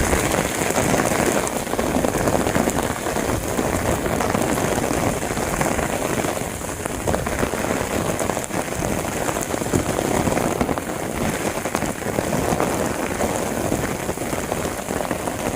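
Steady rain falling: a dense, even hiss with many small drop ticks, holding at a constant level.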